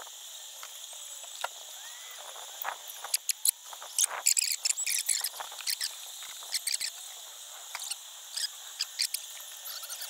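Irregular clicks, scrapes and rustling from a beekeeper's hands and suit as he works at the hive in an electrical meter box close by, thickest about four to six seconds in, over a steady high-pitched whine.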